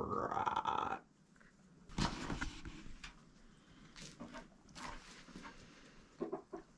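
A chicken gives a loud call lasting about the first second, followed by softer scratching and rustling and a few short, quiet clucks near the end.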